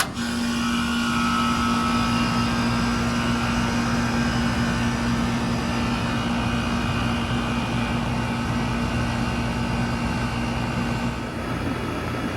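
2001 Miller (Nordyne) 2-ton central air conditioner starting up: a click as it switches on, then its reciprocating compressor and fan run with a steady hum. A strong humming tone in it fades away about eleven seconds in.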